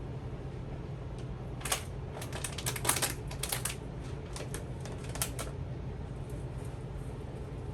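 Dry oatmeal going into a blender jar: a run of quick, irregular light clicks and rattles for a few seconds, over a steady low hum.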